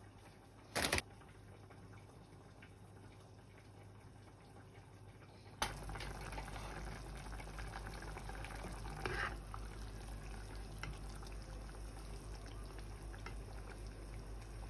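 Saucepan of lu rou fan, braised pork and boiled eggs in sauce, simmering on a gas stove: a steady bubbling hiss that starts suddenly about five and a half seconds in. Before it, a brief sharp sound about a second in.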